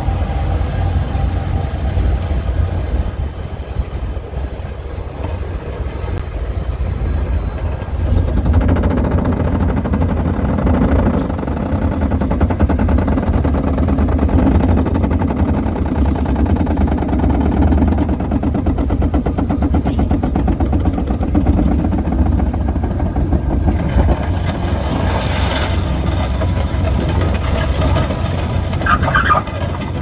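Crawler-mounted drilling rig working: a loud, low, steady mechanical running that grows heavier and denser, with a fast rattle, from about eight seconds in until about twenty-three seconds.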